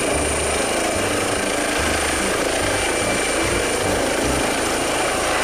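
Eurocopter EC135 air ambulance helicopter lifting off: a steady turbine whine over the low beat of the main rotor blades.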